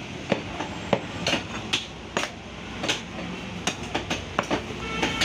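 A large butcher's knife cutting beef and knocking on a wooden log chopping block: irregular sharp knocks, roughly two a second.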